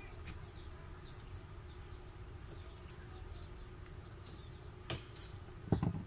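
Light clicks of pliers and a wire connector being handled at a coffee maker's switch, with a louder thump near the end, over a steady low hum and faint chirping.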